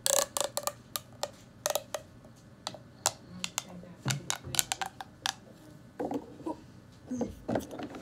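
Ribbed plastic pop tube fidget toy being stretched and squeezed by hand, its ridges snapping out and back in an irregular run of sharp clicks and pops.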